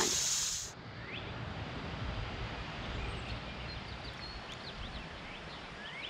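Outdoor ambience with birds calling in short, rising chirps, several at a time in the later seconds, over a low rumble. A steady high insect-like hiss cuts off abruptly just under a second in.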